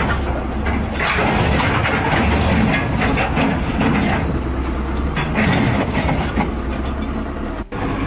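Heavy diesel machinery running loud and steady, with a low engine hum under continuous metallic clattering and rattling. It breaks off abruptly near the end.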